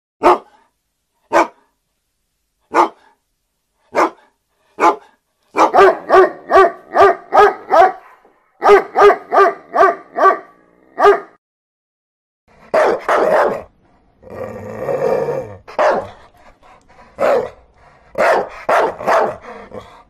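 Dog barking: five single barks about a second apart, then two rapid runs of about three barks a second. After a pause of about a second and a half come longer, rougher barks.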